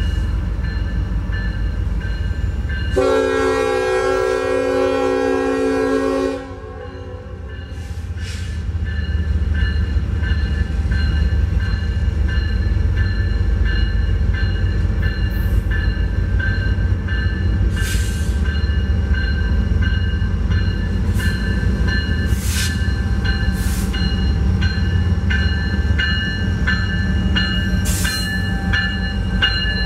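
Union Pacific SD70AH diesel locomotive sounding one horn blast of about three seconds, a few seconds in, as the freight approaches. Afterward the diesel rumble of the lead locomotives grows louder as they come up and pass close by.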